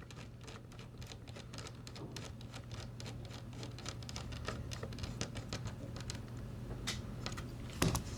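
Screwdriver driving M3 screws into threaded inserts in a 3D-printed plastic case: a quick, irregular run of small clicks and ticks, with a louder knock near the end.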